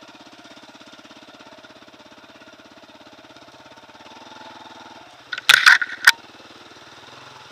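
Small motorcycle engine running at low revs, its note rising a little about four seconds in. Between five and a half and six seconds in comes a short cluster of loud, sharp hits, louder than the engine.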